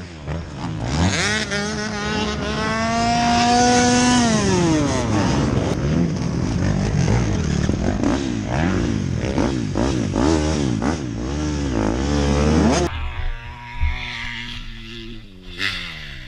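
Dirt bike engines revving on a motocross track, the pitch climbing in one long rise and then falling, followed by many quick rises and falls. About 13 seconds in the sound cuts abruptly to a quieter scene with wind noise and a passing bike engine falling in pitch.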